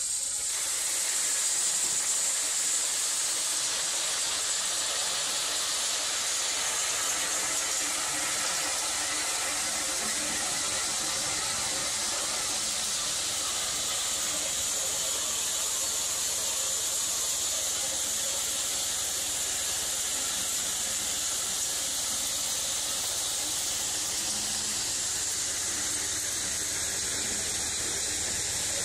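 A 24 by 16 HD hammer mill pulverising a bucketful of spent shotgun shells, bashing the brass bases and plastic hulls apart. It sets in abruptly as the shells are poured in and holds as a steady, high-pitched grinding rush, loudest in the first few seconds.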